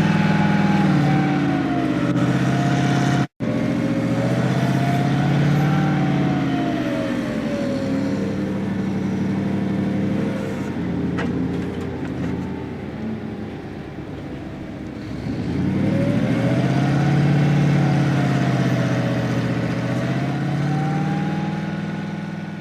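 A motor vehicle engine revving, its pitch rising and falling in slow swells. The sound cuts out abruptly for an instant about three seconds in and fades away near the end.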